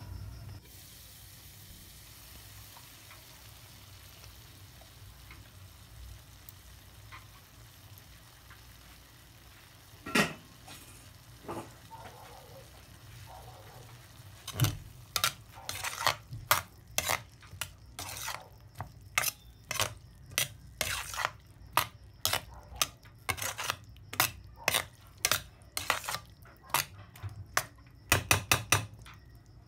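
A pot of afritada simmering faintly under its lid, with a couple of knocks around ten seconds in. From about halfway, a utensil stirs the thick tomato-sauced stew, scraping and clacking against the pan in regular strokes about one or two a second.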